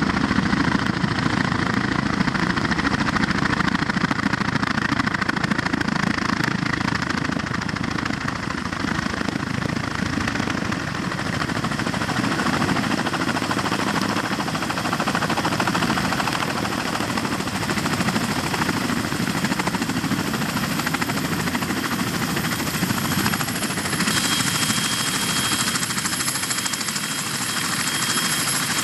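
CH-46E Sea Knight tandem-rotor helicopters coming in to land: a steady, loud din of rotor and engine noise. A high, thin turbine whine joins in over the last several seconds as one sets down close by.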